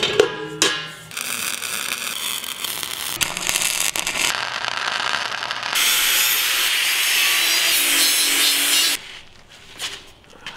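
Angle grinder cutting and grinding metal tubing: a harsh, steady grinding noise in several short takes, loudest until about nine seconds in, when it stops and the sound drops much quieter.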